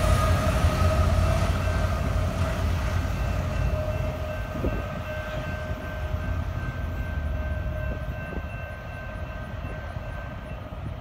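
Double-stack intermodal freight train's rear diesel locomotive going by and the train rumbling off, its low rumble fading steadily as it moves away, with a faint steady tone held above it.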